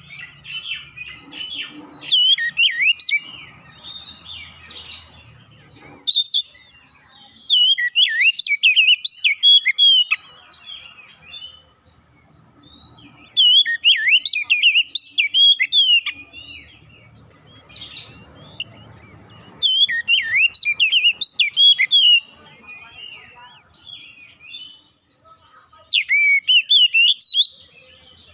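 Oriental magpie-robin singing: loud bouts of rapid, varied whistled phrases, each lasting about two to four seconds, separated by short pauses.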